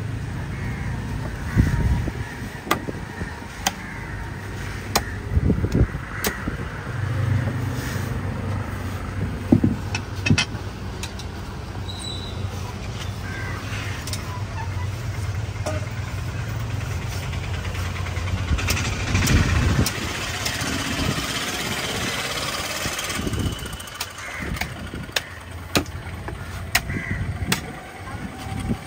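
Machete blows chopping through a large fish on a wooden block, sharp irregular knocks about once a second. Motor vehicle engines run underneath, the loudest passing about twenty seconds in.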